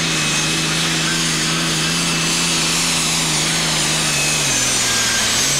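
The engine of a John Deere superstock pulling tractor runs flat out under load as it drags the weighted sledge down the track. It holds a steady note, then dips slightly in pitch about four and a half seconds in.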